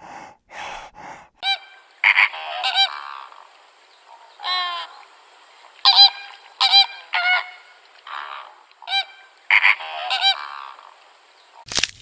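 An animal giving a run of short, pitched honking calls, about a dozen, some in quick pairs. A few short breathy puffs come first, and a crinkling noise starts right at the end.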